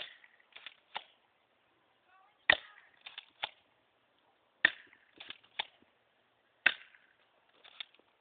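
Airsoft Mossberg M590 pump shotgun fired four times, about two seconds apart. Each sharp shot is followed by quieter clacks as the pump is racked for the next round.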